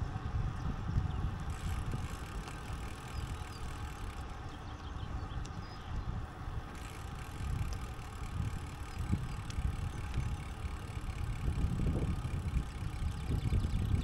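Riding a bicycle along a path: continuous low rumble of wind buffeting the microphone and tyres rolling, with a steady hum above it.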